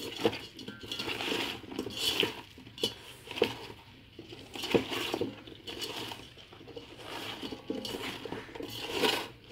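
Cauliflower florets and vegetable pieces being mixed by hand in a metal pot: irregular knocks and clinks of pieces and fingers against the pot wall, with soft rustling and squishing between them.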